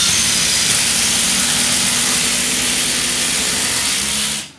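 Five Makita 40V XGT cordless impact drivers and impact wrenches running together, driving 10-inch timber screws, their hammer mechanisms impacting rapidly under load. The din stops abruptly near the end as the screws go home.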